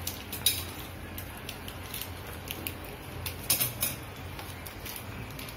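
A small spoon clinking and tapping as dried herbs are sprinkled from it into a frying pan of sauce: scattered light clicks, with a few louder clinks about half a second in and around three and a half seconds in, over a steady low hum.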